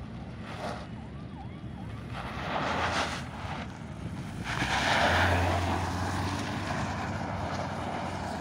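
Mahindra XUV700 SUV driven in tight circles on loose dirt: a steady engine hum with engine and tyre noise swelling and fading in waves as it comes round, loudest about five seconds in.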